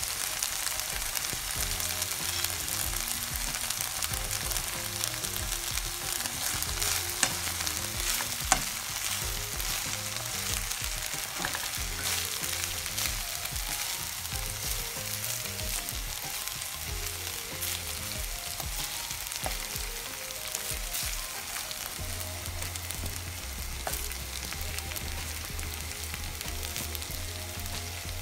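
Vegetable fried rice sizzling in a frying pan as it is stirred, with scattered clicks and scrapes of the stirring utensil against the pan and two sharper knocks about seven and eight and a half seconds in.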